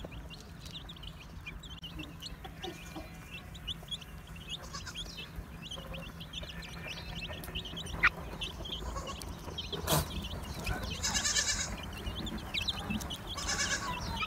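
A brood of chicks peeping continuously in quick, high, rising chirps. A goat kid bleats twice near the end.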